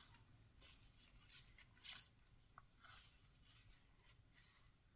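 Faint rustle of paper pages being turned in a small handmade journal: a few soft swishes, otherwise near silence.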